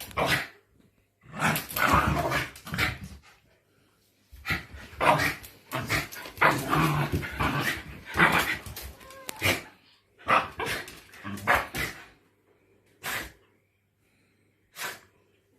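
Two Shiba Inus play-fighting, with bursts of barking and growling in quick runs of a second or so. They go mostly quiet near the end, apart from a few short yips.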